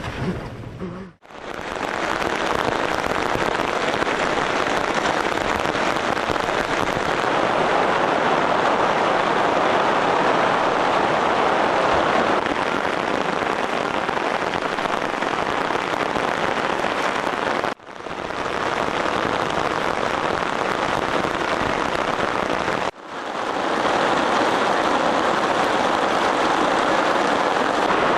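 Steady rain, an even dense hiss that cuts out abruptly three times for a split second and resumes.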